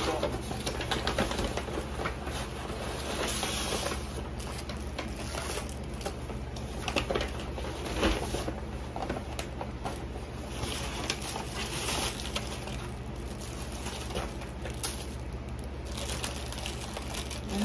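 Paper and plastic takeout bags rustling and crinkling in bouts as food containers are pulled out, over a steady low hum.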